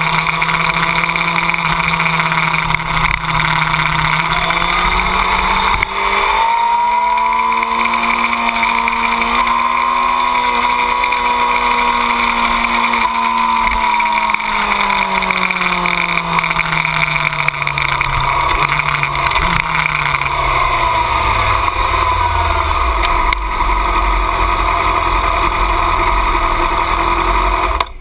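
A 2008 Yamaha R6's inline-four engine at low revs under heavy wind rush on the microphone. Its note rises briefly about five seconds in, then falls slowly as the bike slows off the track, and the sound cuts off abruptly near the end.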